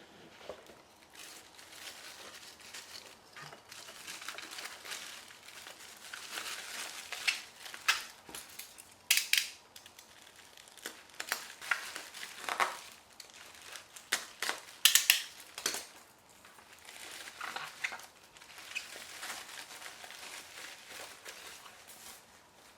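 Packaging being unwrapped and crumpled by hand, an irregular crinkling with a few sharp, louder crackles.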